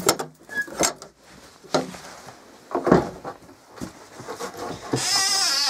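Wooden shed door and its metal latch being worked by hand, giving a few sharp knocks and clicks over the first three seconds. Near the end a sheep bleats once with a wavering call.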